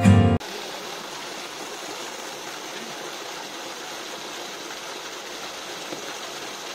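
Water gushing from a pipe outlet and splashing into the water of an open well, a steady rushing.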